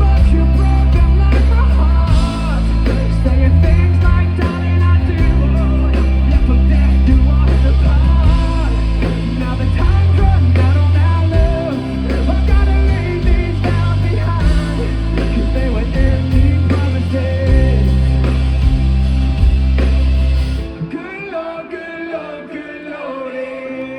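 Live rock band playing with a singer over heavy bass and drums, the full band stopping abruptly about 21 seconds in, followed by the crowd cheering and whooping.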